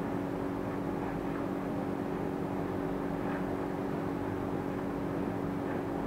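Steady low hum with hiss, even throughout: the room noise of an indoor space, such as a fan or ventilation drone.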